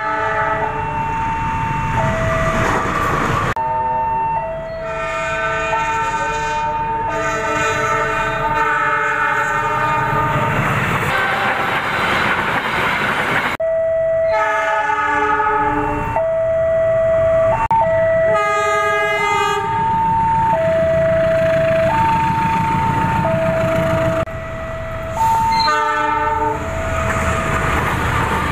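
Horns of KAI GE CC206 diesel-electric locomotives sounding the Semboyan 35 signal, the driver's horn call on departure or approach. The horns switch back and forth between a lower and a higher note about once a second over the rumble of trains on the track, in several separate takes.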